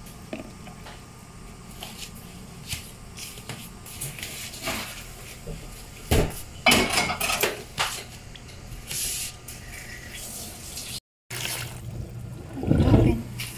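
A plastic spoon and plastic food containers knocking and clattering as ingredients are handled, busiest about six seconds in. Near the end, after a brief dropout, water splashes into the plastic outer tray over the self-heating pack.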